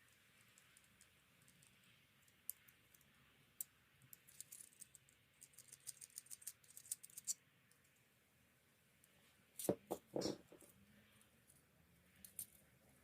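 Scattered light clicks and ticks of small hard parts being handled, growing busier, then a few louder knocks about ten seconds in.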